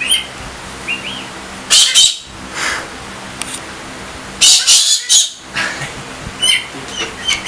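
Galah screeching: a few short harsh calls, then a loud burst of screeches about four and a half seconds in, with more calls after.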